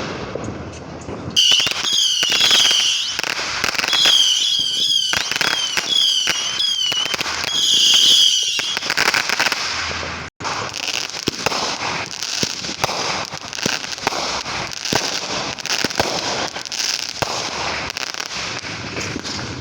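Fireworks going off: rapid pops and crackling throughout, with a repeated high wavering whistle over the first half, then dense crackling after a brief break about halfway.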